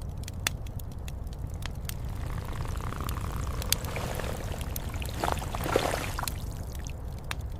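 Cabin ambience: scattered crackling clicks of a fire over a steady low storm rumble, with a rushing, pouring sound swelling from about two seconds in and fading near the end.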